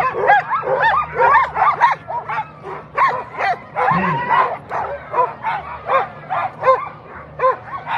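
A team of harnessed Alaskan huskies barking and yipping over one another, several short high calls a second without a break: the dogs' excitement as they wait to be released at the start line.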